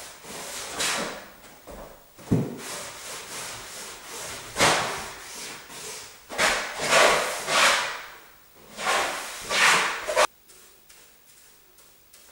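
Cloth rag rubbing wood stain into wooden wall boards: several rough swishing strokes, with a low thump about two seconds in. The rubbing stops abruptly near the end.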